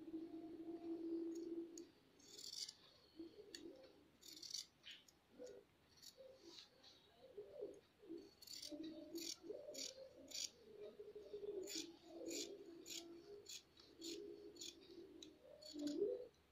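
Large tailor's shears snipping quietly through blouse fabric. A few cuts are spaced well apart at first, then comes a quicker run of about two or three snips a second through the second half.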